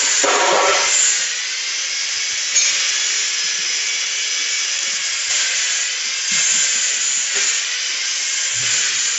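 Steady hissing whir of a handheld bottle-capping tool, unbroken throughout, with a short rougher rattle about half a second in.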